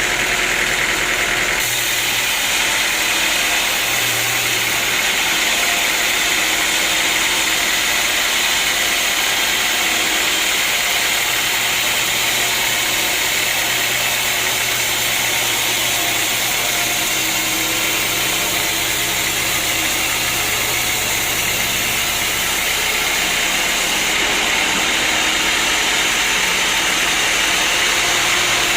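Sawmill machinery running steadily: a continuous loud mechanical noise with a low engine hum underneath.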